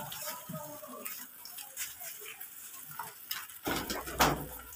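Pigeons and chickens feeding on a straw-covered floor: light pecking and rustling with a few short, soft bird calls, then a louder rustle lasting about a second near the end.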